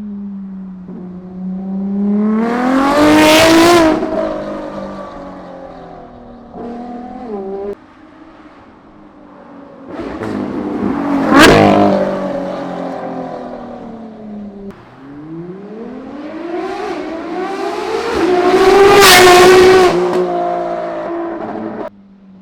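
Ferrari LaFerrari's naturally aspirated V12 with a straight-piped RYFT titanium exhaust, accelerating hard in three separate runs. Each run rises in pitch to a loud peak and then falls away.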